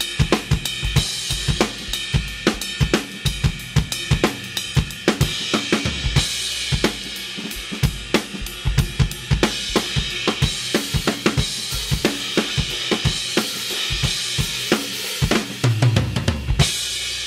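Drum kit with Istanbul Mehmet Samatya cymbals played as a groove: kick, snare and hi-hat under washing cymbals. Near the end a short run of low drum hits leads into a final cymbal crash that rings on.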